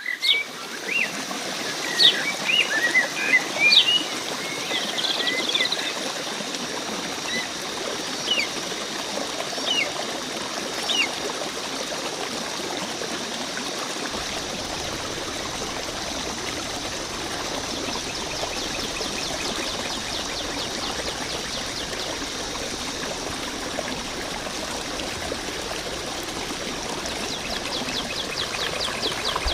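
Flowing water trickling steadily, with birds chirping over it several times in the first ten seconds or so. From about eighteen seconds in, a fast, high ticking trill joins the water.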